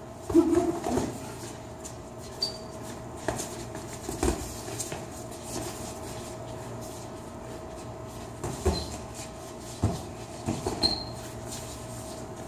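Boxing sparring: scattered sharp thuds of gloves landing and feet moving on a hard floor, with a louder cluster of knocks about half a second in and a few brief high squeaks. A steady faint hum runs underneath.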